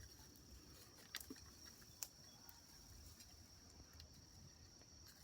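Near silence with a faint, steady, high-pitched insect drone, and a few soft clicks about one and two seconds in.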